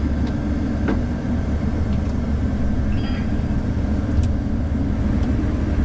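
Combine harvester running while picking corn, a steady low drone with a constant hum, heard from inside the cab. A few faint ticks sound over it.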